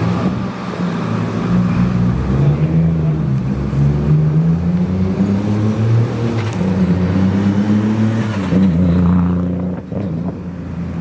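A custom car's engine running loud and deep as the car drives slowly past, its revs rising and falling a little, then fading near the end.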